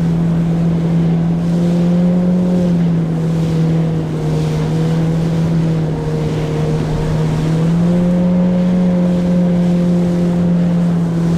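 Yamaha WaveRunner jet ski engine running steadily under way at sea, its pitch easing down a little midway and then picking back up, with wind and water rushing.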